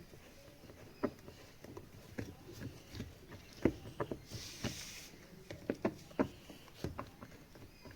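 Irregular light clicks and knocks of metal and plastic parts being handled while working on a washing machine's gearbox, with a short hiss about four seconds in.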